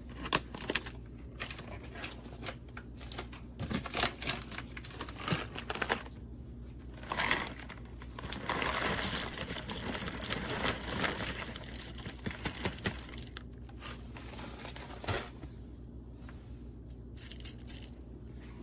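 Hand-cranked ceramic burr coffee grinder crushing beans: irregular crackling crunches and clicks, growing denser and louder for several seconds around the middle.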